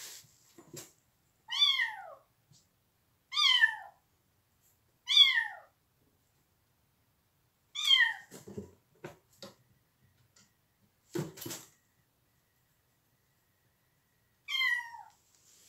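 Young kittens meowing: five high calls, each about half a second long and falling in pitch, spaced a couple of seconds apart with a longer gap before the last. These are the cries of kittens that the owner takes to be calling for their mother. A few dull knocks come in the middle stretch.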